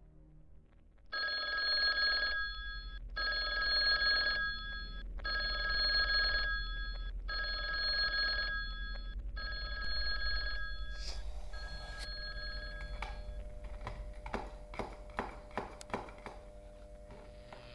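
Payphone ringing in repeated bursts about a second long with very short breaks, about five rings, thinning and fading out past the middle. Near the end comes a quick run of sharp clicks over a low steady hum.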